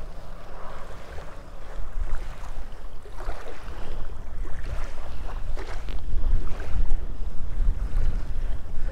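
Wind buffeting the microphone in a low rumble that grows stronger in the second half, over small waves lapping at the shoreline.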